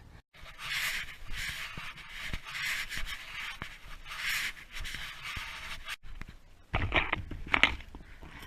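A person breathing hard, a long breath about every second and a half to two. Then a few knocks and rubbing, like the microphone being handled, near the end.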